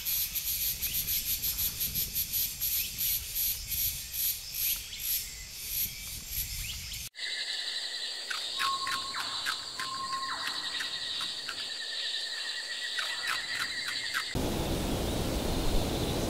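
Forest ambience. High insect chirping pulses at about two a second. After a sudden cut, a steady high insect buzz carries short scattered chirps. Near the end it changes abruptly to an even hiss.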